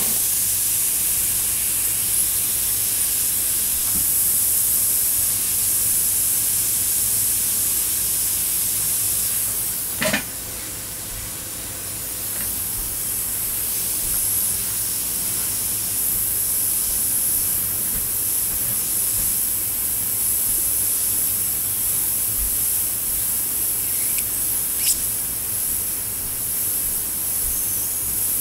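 Harbor Freight double-action suction-feed airbrush hissing steadily as it sprays paint. About ten seconds in there is a click and the hiss drops for a few seconds before building back up.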